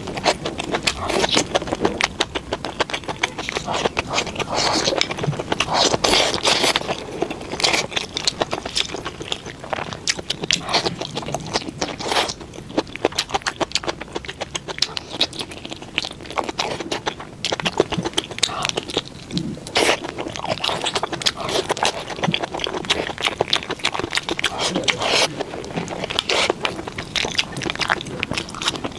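Eating sounds: a person chewing and biting into a meal of noodles, fried pork intestines and vegetables, with many short crunches and clicks throughout.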